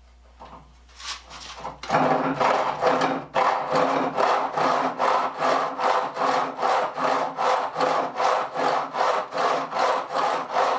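Old handsaw with badly sharpened, uneven teeth cutting a clamped piece of scrap wood: a few light strokes to start the kerf, then, from about two seconds in, steady back-and-forth strokes, two or three a second. The uneven teeth make the saw catch, hop over a tooth and catch again as it goes through.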